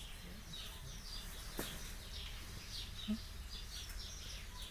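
Small songbirds chirping, short high chirps several a second, over a steady low rumble, with one sharp click about one and a half seconds in.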